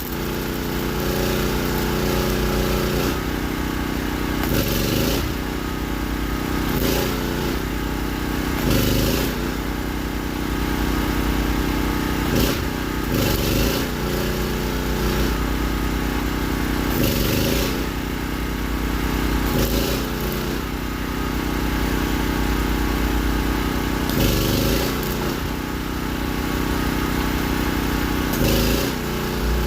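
Small gasoline engine-driven generator running steadily, with a short burst of hissing crackle every few seconds, about nine in all.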